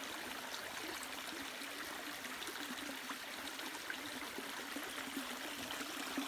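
A small stream running: a steady babble of flowing water.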